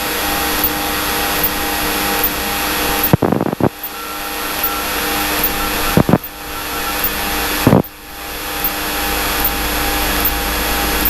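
Single-engine Cessna's piston engine and propeller droning steadily as heard in the cockpit. Sharp clicks about three and a half, six and eight seconds in each briefly drop the noise.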